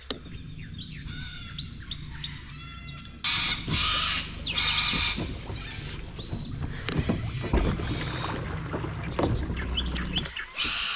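Birds calling, with crow-like calls, over a steady low rumble. About three seconds in comes a run of loud, harsh noise lasting a couple of seconds.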